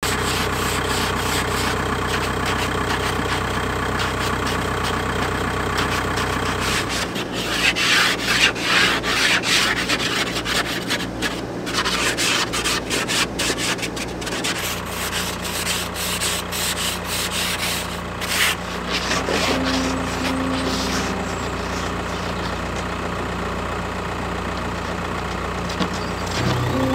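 Ice scraper scraping frost off a car windshield in a run of quick, rasping strokes through the middle, with one short stroke later. A car engine idles steadily underneath.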